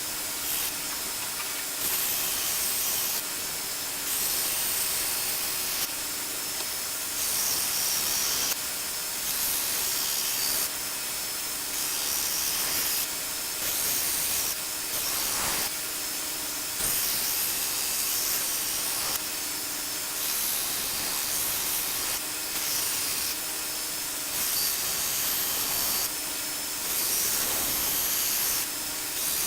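1x42 belt sander running with an 80-grit belt, a steel cleaver blade pressed against it in repeated passes. Each pass of one to two seconds is a grinding hiss over the sander's steady hum, as the bevel is ground.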